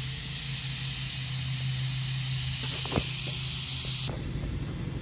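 Electric angle grinder with an abrasive disc running steadily as it grinds paint and surface rust off a van's lower door edge down to bare metal: a low motor hum under a steady hiss. The hiss cuts off sharply about four seconds in.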